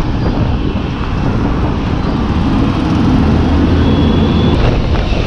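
Yamaha FZ motorcycle engine running at low speed, with a steady rumble that grows a little louder about halfway through, mixed with the noise of surrounding traffic.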